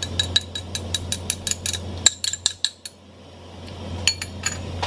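Metal spoon clinking and scraping against a ceramic bowl as batter is knocked out of it: a fast run of ringing taps, about six a second, for the first two seconds, a short burst just after, then a few more about four seconds in. A steady low hum runs underneath.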